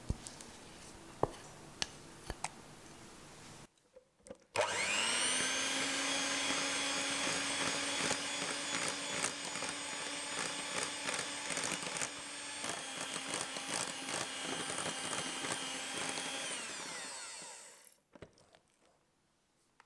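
A few light clicks and taps, then an electric hand mixer starts about four and a half seconds in, its motor whine rising to speed. It runs steadily, its wire beaters whipping melted chocolate into cream in a glass bowl with small clicks against the glass, and near the end it winds down and stops.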